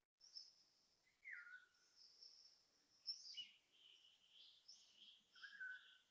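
Faint bird-like whistles and chirps overlapping: a falling whistle about a second in and again near the end, high chirps, and a run of short repeated notes in the second half. The uploader takes them for fake bird noises being played rather than real birds.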